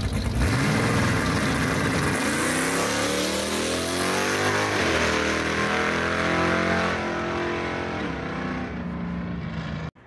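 Foxbody Mustang's naturally aspirated 385 cubic-inch small-block Chevrolet V8 launching off the line and accelerating hard down the drag strip. The engine pitch climbs, drops and climbs again about five seconds in as it pulls away, then cuts off abruptly near the end.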